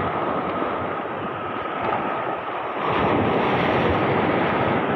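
Sea surf breaking and washing over a rocky shore, a steady rush of water that swells louder about three seconds in as a wave breaks.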